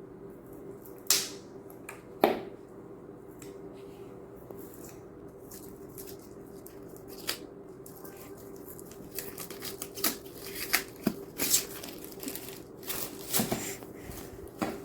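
A toy kit's packaging being cut with scissors and handled: two sharp snips or clicks early, then a busy run of crinkling and snapping from about two-thirds of the way in, over a faint steady hum.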